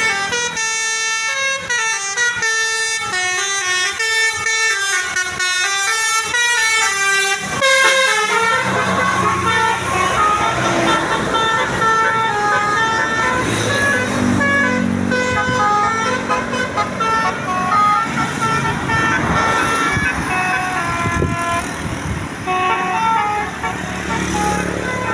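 Tour bus 'telolet' horn, a set of multi-tone air horns, playing a tune of stepped notes for about seven seconds. After that the horn keeps tooting in shorter phrases over the bus engine and a busier background din.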